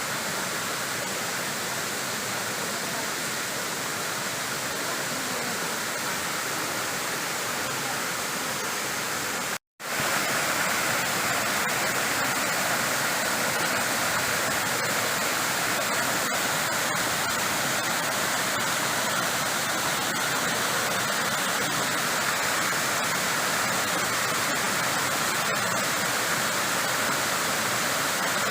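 Waterfall: a steady rush of falling water. It cuts out for a moment about ten seconds in, then comes back a little louder.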